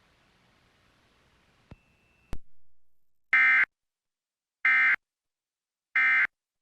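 Emergency Alert System end-of-message data bursts: three short, identical warbling digital tone bursts about a second apart, marking the end of the test alert. A sharp click comes just before them, about two seconds in.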